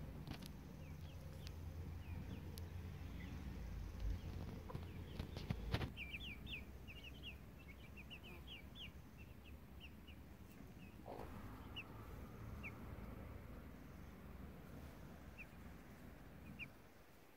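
Month-old Silkie chicks peeping in short, high chirps: a quick run of them a few seconds in, then scattered single peeps. A low background rumble runs underneath, with a couple of short knocks.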